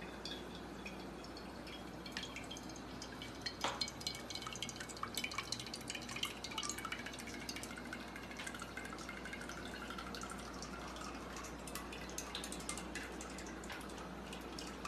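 Cooking oil poured from a plastic bottle into a metal kadai, trickling and dripping, with scattered small clicks and taps.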